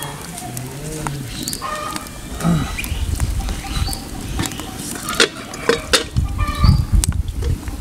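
Chile sauce for mole frying in hot oil in a clay cazuela over a wood fire: a steady sizzle with irregular pops and spatters that grow thicker in the second half, under a low rumble in the middle seconds.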